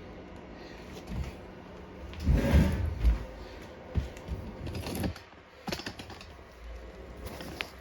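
Clunks and rattles of mower parts and tools being handled during disassembly. The loudest clatter comes about two and a half seconds in, followed by a few sharp knocks.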